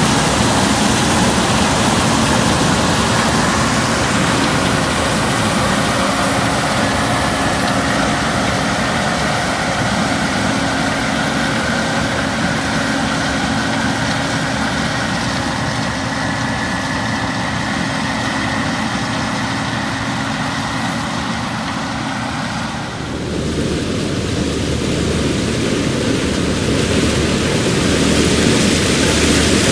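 Case IH 2388 combine running steadily while harvesting corn: engine and threshing machinery with a constant whine. About 23 seconds in the sound changes abruptly, as if heard from a different spot.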